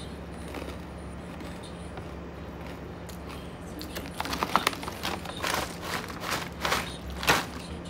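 A steady low background hum, then from about four seconds in, irregular crinkling and crackling of plastic packaging being handled.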